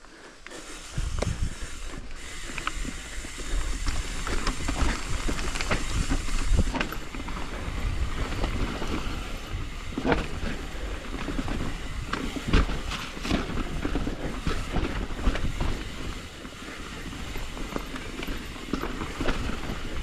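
Transition TransAM hardtail mountain bike riding down a rough dirt trail: tyres rumbling over the ground, with the chain and frame clattering and rattling, starting up about a second in.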